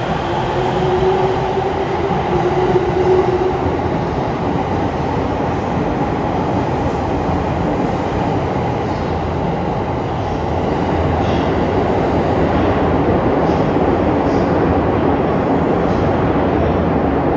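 Electric train running alongside a station platform, a loud steady rumble of wheels and motors, with a held whine for a couple of seconds near the start.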